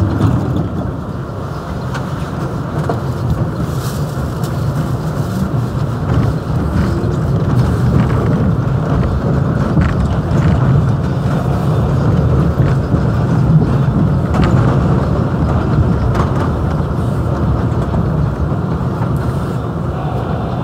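R62A subway car running on an elevated line, its wheels rumbling on the rails with the traction motors under it. The sound grows louder over the first several seconds as the train picks up speed, then holds steady, with a few faint clicks from the rails.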